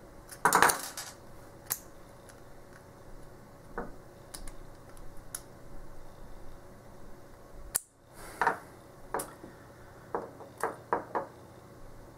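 Small metallic clicks and scrapes of fingers prying at the retaining clip on the brass core of an Ace A527 padlock: a louder cluster of clicks about half a second in, scattered single clicks, then a quicker run of clicks in the last few seconds.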